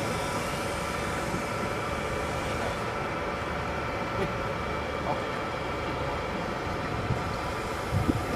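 A small fishing boat's engine running steadily at a constant speed, with a couple of light knocks near the end.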